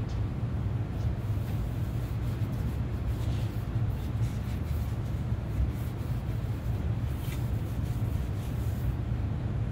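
A steady low rumble, with the faint scuffing of a cloth rag now and then as it wipes stain over a wooden guitar body.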